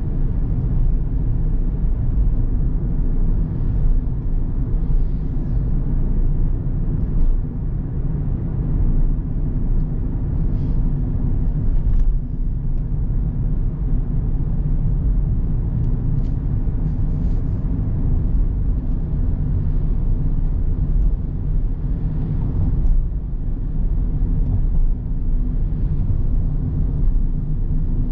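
Car driving on a road: a steady low rumble of the engine and tyres.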